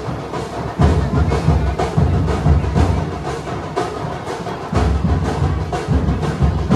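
Music carried by fast, rhythmic drumming, with heavy low drum strokes recurring about once a second over quicker sharp beats.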